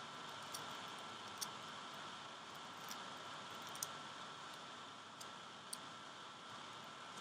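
Faint, scattered light clicks and taps of small vaporizer parts being handled and fitted together, about seven over several seconds, over a steady background hiss.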